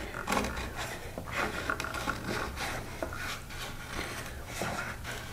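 Chisel plane shaving dried glue flush off the corner of an oak box: a series of short, irregular scraping strokes of the blade across the wood.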